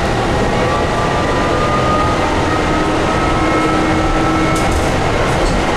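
Tatra T6A5 tram running, heard from inside the car: a steady rumble of wheels and running gear on the rails with a faint whine over it.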